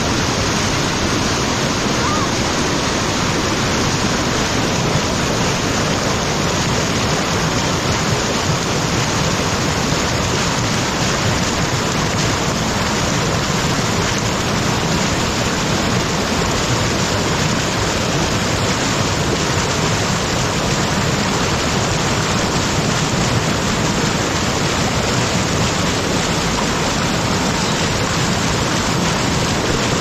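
Mountain stream rushing over rocks and small falls, a steady, loud, unbroken rush of water.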